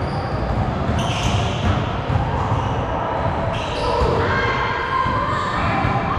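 A basketball being dribbled on a gym floor during a game, with repeated thuds throughout, short high squeaks and players' voices mixed in.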